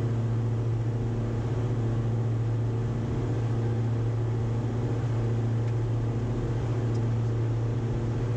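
Twin Austro AE300 turbodiesel engines and propellers of a Diamond DA42 VI droning steadily at full climb power, heard inside the cockpit: a constant low hum with fainter overtones above it.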